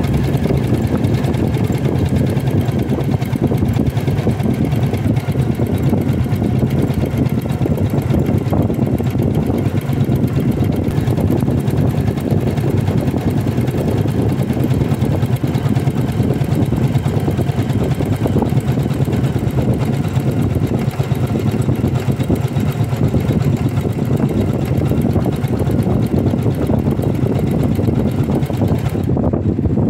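Embroidery machine stitching steadily: a fast, even run of needle strokes over the hum of its motor.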